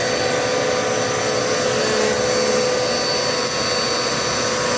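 Upright vacuum cleaner running steadily: an even motor drone with a few constant high whining tones over it.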